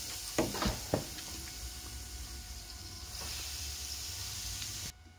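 Electric deep fryer's hot oil sizzling steadily, with a few light knocks of a metal spoon against the wire basket within the first second. The sizzle cuts off sharply near the end.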